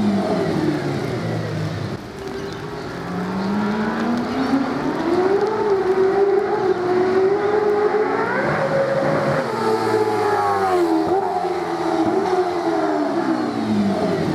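5.0-litre flatplane-crank Mercedes-Benz V8 of an E63 AMG V8 Supercar race car, under load: its pitch falls, then climbs steadily for several seconds, jumps and breaks about eight seconds in, and dips and climbs again near the end.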